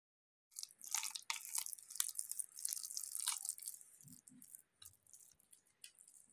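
Faint wet squishing and crackling of a minced beef, potato and egg kebab mixture being pressed and shaped by hand, starting suddenly about half a second in and thinning out after about three seconds.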